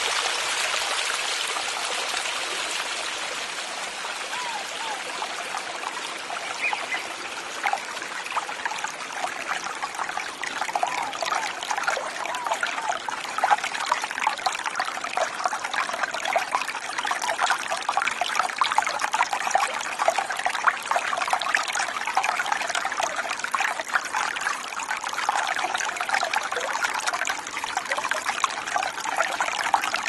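A small creek trickling and gurgling over rocks: a steady rush of running water thick with quick bubbling splashes, which grow livelier after the first few seconds.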